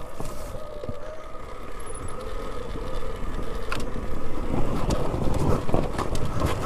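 Alta Redshift MXR electric dirt bike under way on a rough dirt trail: a steady whine from the electric motor and drive that drifts slightly in pitch with speed, over the rumble of tyres on loose ground. Sharp knocks and rattles come as the bike goes over bumps, heaviest past the middle.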